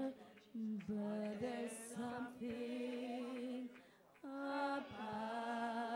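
A single voice singing a slow worship song unaccompanied, in long held notes, with a short break for breath about four seconds in.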